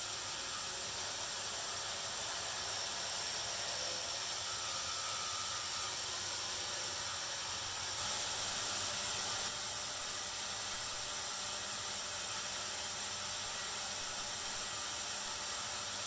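Bandsaw running with a steady hiss while cutting the end off a hollowed half of an incense cedar log, a little louder for about a second and a half around eight seconds in as the blade goes through the wood.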